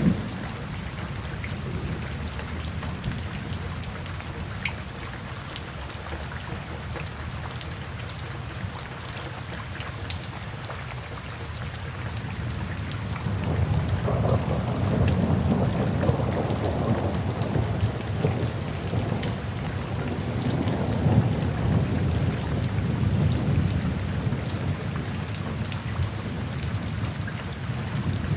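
Steady rain with scattered drop ticks. About halfway through, a long low rumble of thunder builds and slowly fades over roughly ten seconds.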